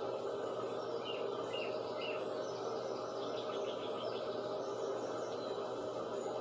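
Small birds chirping in short, scattered calls, busiest about three seconds in, over a steady background hiss.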